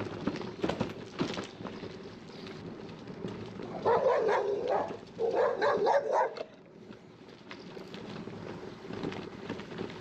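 A dog barking in two quick runs of barks, about four and five and a half seconds in, over steady background noise.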